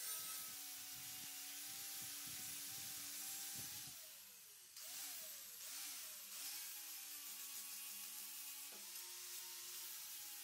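Electric angle grinder with a flap disc running and grinding steel, a steady whine over rough scraping. Around the middle its pitch dips and recovers a few times, and near the end it steps up.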